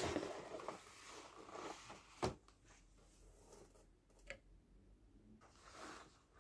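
Faint rustling of a laptop box and its packaging being handled, with two sharp clicks, one about two seconds in and one about four seconds in.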